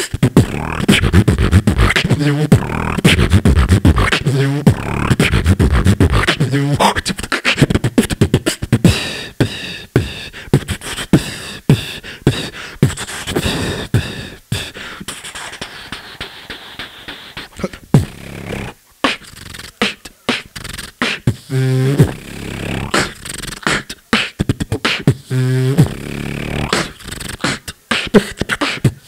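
A solo beatboxer performs into a handheld microphone, amplified over a PA. Dense, rapid kick, snare and hat sounds over deep bass fill the first several seconds, then the pattern thins out, with short pitched buzzing bass notes about two thirds of the way in and again near the end.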